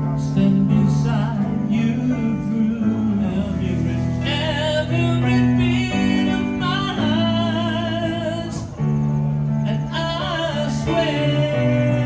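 Live amplified music: a man singing and playing an electronic keyboard, with held chords over a slow-moving bass line.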